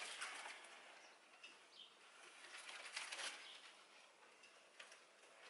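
Faint rustling as a potted bird of paradise plant is shifted by hand, its large leaves and pot brushing, in two soft bursts just after the start and about three seconds in.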